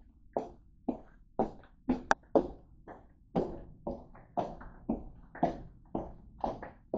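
Close-up chewing with wet open-mouth smacks, about two a second in a steady rhythm.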